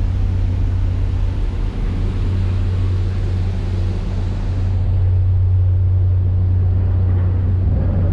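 Passenger ferry's engines running with a steady low drone and a hiss above it, growing a little louder about halfway through.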